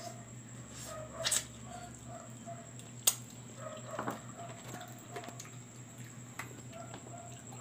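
A person eating roasted chicken with his hands: chewing and mouth sounds with a few sharp clicks, the sharpest about three seconds in, over a steady low hum and a soft repeating tick.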